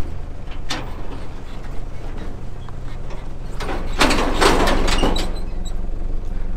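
Vehicle engine running with a steady low hum, a few sharp clicks, and a loud burst of noise about four seconds in that lasts just over a second.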